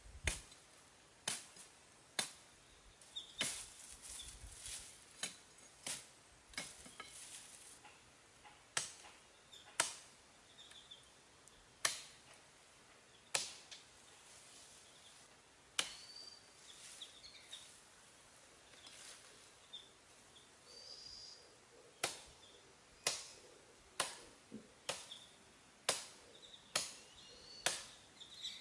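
Machete chopping a green sapling and trimming branches off the pole: sharp single chops, about one a second, in runs with short pauses.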